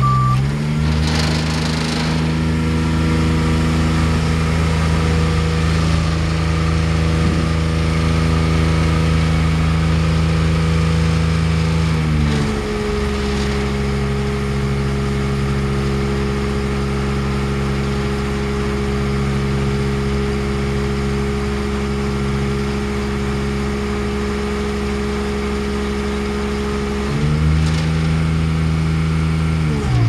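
Engine of a 1999 GMC C7500 bucket truck running steadily. Its pitch drops about twelve seconds in and rises back near the end.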